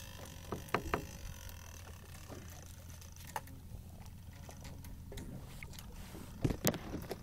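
Boat's outboard motor idling, a steady low hum, with a few sharp knocks and clicks scattered through it, the two loudest close together near the end.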